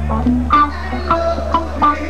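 Rock band playing live: electric guitar picking short notes over a steady held bass note, with a few sharp drum hits.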